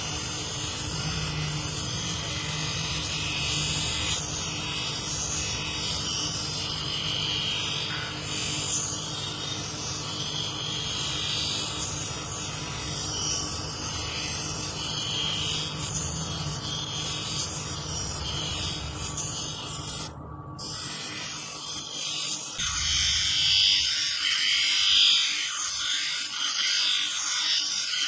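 Manual lens grooving machine's motor hum and spinning wheel, with the gritty, scraping grind of a plastic spectacle lens edge held against it to cut the groove. The grinding varies as the lens is turned, and gets louder near the end as the hum drops away.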